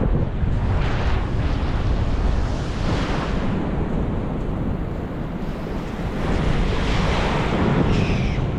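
Pacific Ocean surf washing ashore, swelling a few times, with wind buffeting the microphone in a steady low rumble.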